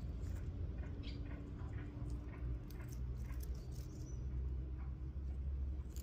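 Wind rumbling on the microphone outdoors, with faint short bird chirps scattered through it.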